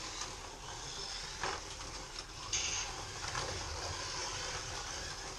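Several Fly slot cars running around a Scalextric ARC Pro track: a steady mechanical running noise with a few short clicks.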